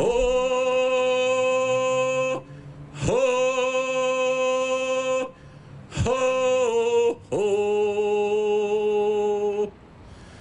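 A man chanting alone in four long held notes with short breaks between them. The later notes drop slightly in pitch partway through.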